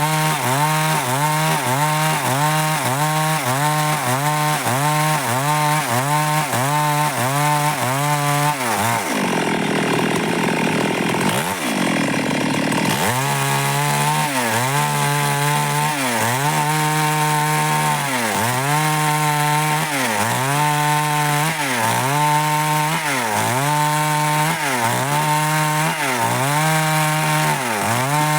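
Stihl MS 382 two-stroke chainsaw cutting dry wood. Its engine pitch dips and recovers over and over as the chain bites: quickly at first, then more slowly after a rougher, grinding stretch near the middle.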